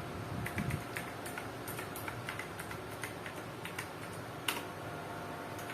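Keys of a Logitech G512 mechanical keyboard with clicky blue switches being pressed one at a time, giving irregular sharp clicks several times a second, with one louder click about four and a half seconds in.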